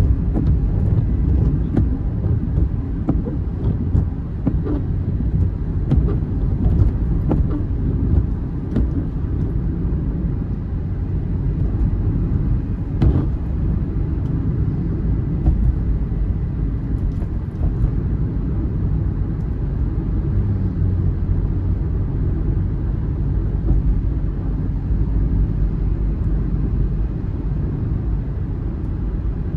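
Steady low rumble of a moving vehicle, with a few light ticks scattered through it.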